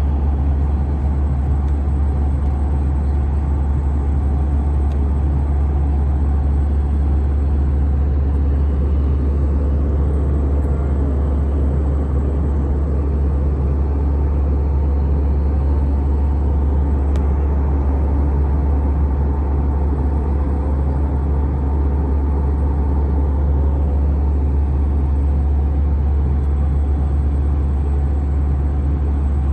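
Airplane in flight: a steady, loud low rumble.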